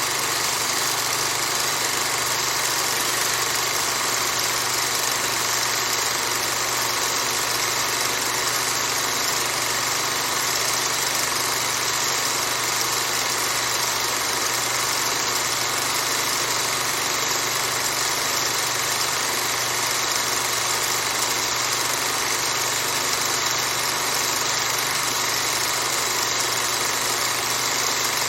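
Old overhead projector running with a steady hum and the whir of its cooling fan, unchanging throughout.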